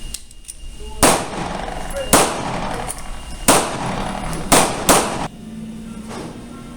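Five pistol shots at uneven intervals over about four seconds, the last two close together, each followed by a short echo.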